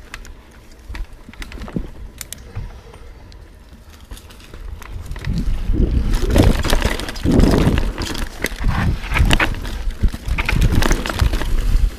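Yeti SB6c mountain bike riding down a rocky dirt trail: light scattered clicks at first, then from about five seconds in a steady clatter of tyres and frame over rocks and roots with a heavy low rumble as speed picks up.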